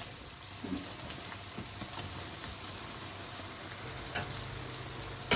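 Sliced bitter gourd sizzling as it goes into hot oil in a wok and is stirred, a steady frying hiss with a couple of light clicks.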